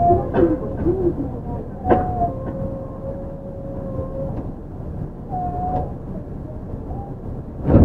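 Yui Rail 1000-series straddle monorail car with a Hitachi IGBT VVVF drive running, heard from inside the car: a steady rumble from the rubber tyres on the guideway and a few steady whine tones from the drive. There is a sharp thump about two seconds in and a louder one near the end.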